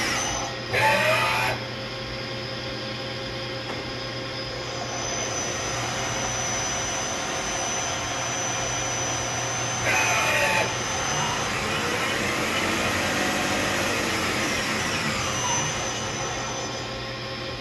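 CNC turning lathe running a test program: a steady machine hum with a whine that rises and then falls in pitch. Two brief louder sounds come about a second in and about ten seconds in.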